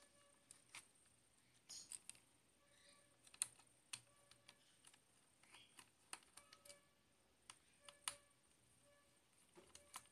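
Small precision screwdriver working tiny screws inside a MacBook Pro: faint, irregular sharp clicks and ticks of metal on metal, a few of them louder.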